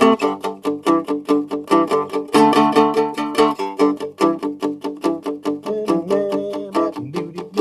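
Seagull Merlin four-string dulcimer tuned G-D-G-G, strummed in a quick, even rhythm of about five or six strokes a second, playing a blues in G. The strings are partly palm-muted, which lets the player vary the volume.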